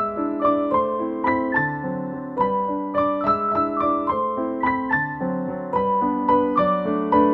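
Background piano music: a light melody of evenly paced notes, about three a second, over sustained lower notes.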